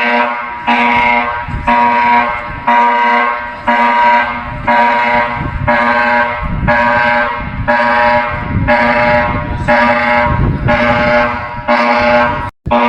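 Emergency alert alarm tone sounding in repeated blasts, about one a second, each a steady chord of tones. It cuts out briefly near the end.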